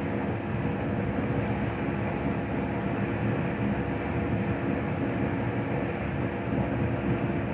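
Steady background rumble with a faint constant hum.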